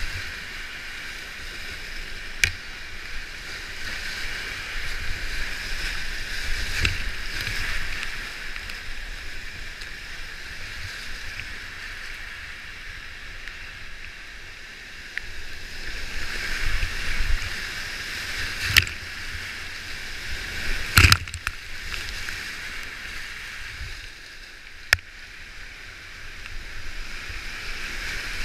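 Roaring whitewater of a flooded creek rushing and breaking around a whitewater kayak, with paddle strokes and water splashing. A few sharp knocks stand out, the loudest about two-thirds of the way through.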